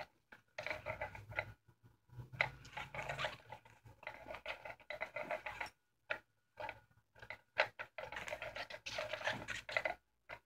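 Battery-powered rolling ball cat toy with a blue light whirring and rattling in irregular stop-start bursts, some short and some lasting a second or more.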